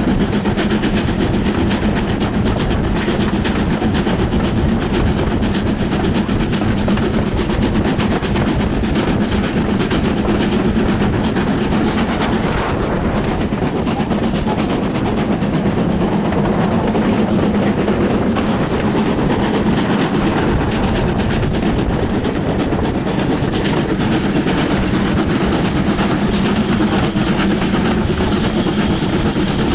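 BR Standard Class 4 2-6-4 tank steam locomotive 80002 running at speed, heard from alongside its cab: a steady, loud rush of running noise with the wheels clicking over the rail joints.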